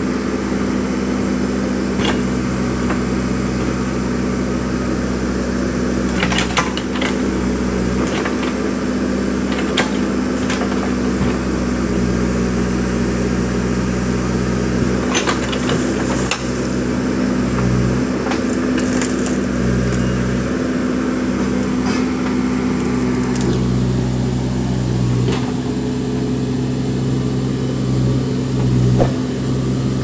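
Case 580 Super M backhoe loader's diesel engine running steadily, its note swelling and easing as the hydraulics take load, with occasional sharp knocks from the bucket working in the soil beside the concrete culvert pipes.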